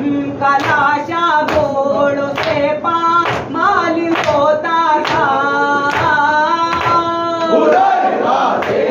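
A male voice singing a noha, a Shia mourning lament, in long held lines, over the rhythmic sound of matam: open hands striking chests together about once a second.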